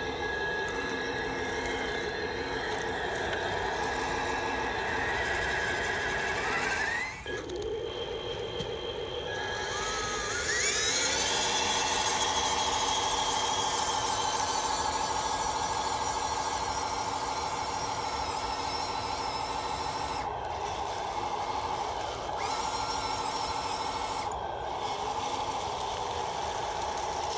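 Simulated diesel engine sound from a DIY Arduino sound module playing through the small speaker of a 1/16-scale WPL B36 Ural-4320 RC truck, with the whine of its electric drive. The pitch rises, drops out briefly and climbs again about a quarter of the way in, then holds steady as the truck drives on.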